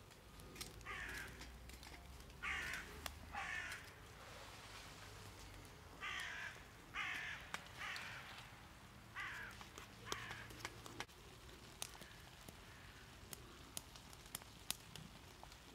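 A crow cawing over and over: about eight short, harsh caws in three bunches, then faint ones further off, with scattered light clicks and taps in between.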